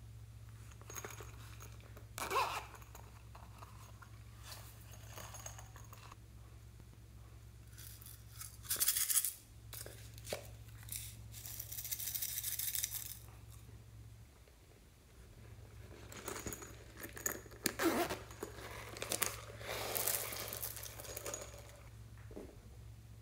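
Hands opening small plastic cases and pouring loose glitter and sequins into a glass dish of slime: scattered clicks and rustles, a short burst of hiss about nine seconds in, a longer hiss of pouring glitter a few seconds later, then a run of crackles near the end. A low steady hum runs underneath.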